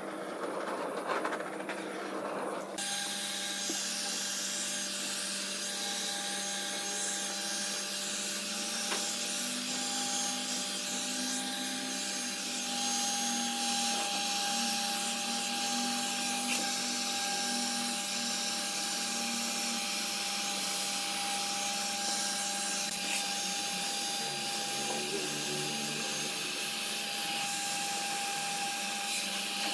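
An electric power tool working wood, running steadily with a motor hum under a steady hiss; it comes in about three seconds in.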